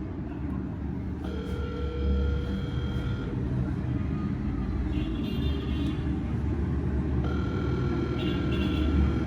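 Phone ringback tone on speakerphone, pulsing twice as steady two-second tones about six seconds apart, while the call goes unanswered. A steady low rumble lies underneath.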